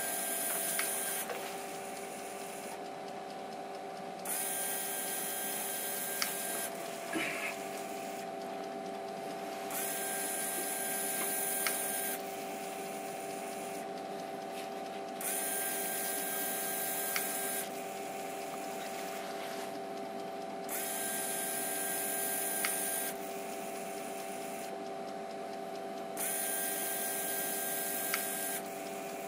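Emco Compact 5 CNC lathe's electric toolchanger turret indexing through six tool positions: six runs of motor whirr with a high whine, about every five and a half seconds, each ending in a click as the turret reverses back onto its lock. A steady electrical hum from the machine runs underneath.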